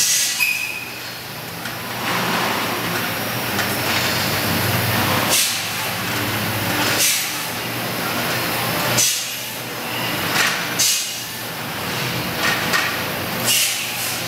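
Wheeled steel-rod dog kennel units rolling on casters over a concrete floor, with a steady rumble and rattle, broken by several sharp metal clanks as the units are pushed together.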